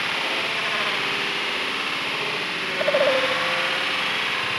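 Waterfall pouring, a steady full rush of falling water. About three seconds in, a short, slightly falling cry rises briefly above it.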